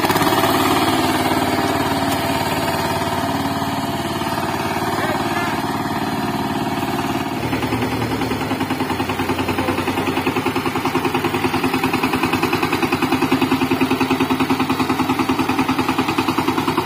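VST Shakti 130 DI power tiller's single-cylinder diesel engine running with a rapid, even pulsing beat as the tiller is driven along. About seven seconds in the sound changes and the individual firing beats become more pronounced.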